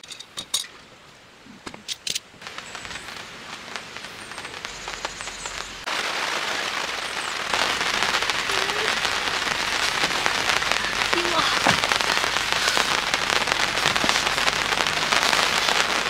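A summer rain shower beginning: a few scattered clicks at first, then a steady rain hiss that gets heavier in several sudden steps over the first half and holds as a full downpour.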